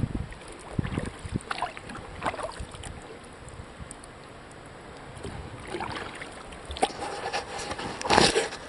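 Kayak paddling: the paddle dipping and splashing in the lake, with wind gusting on the microphone at the start and a louder burst of noise near the end.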